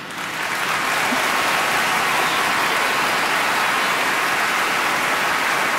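Large theatre audience applauding, swelling over the first second and then holding steady.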